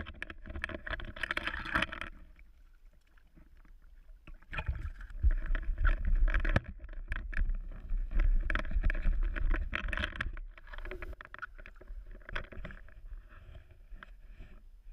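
Water splashing and sloshing with knocks and rustles as a small brook trout is scooped into a landing net beside a kayak and handled. The noise comes in irregular bouts, loudest near the start and from about four to ten seconds in, then quieter.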